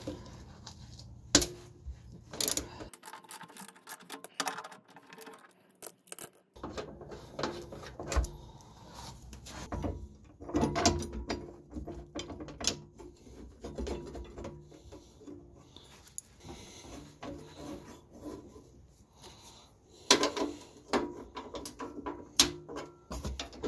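Ratchet wrench clicking in irregular spells as a bolt is loosened under the car, mixed with sharp knocks of metal parts being handled.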